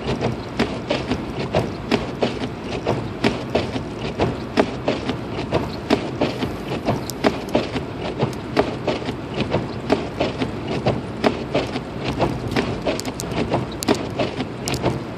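Inside a car driving through a snowstorm: a steady road and engine hum under frequent, irregular clicks and knocks, several a second.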